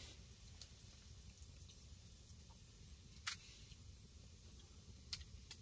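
Near silence with a low background hum and a few scattered sharp clicks, the loudest about three seconds in and another near the end.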